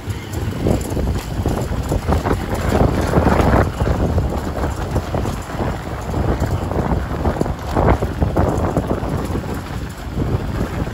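Wind buffeting the microphone on a moving motorbike, over the rumble of the bike running down a cobblestone street. The gusts swell about three seconds in and again near eight seconds.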